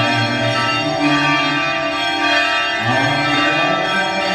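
Organ music: sustained chords held and changing every second or two.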